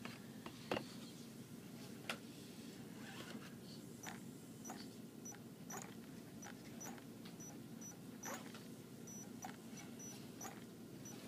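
Tekin ROC412 brushless RC crawler motor running on the bench out of the car: a faint low steady hum with irregular light clicks and ticks over it, the motor knock the owner is chasing, which he now finds more of a vibration.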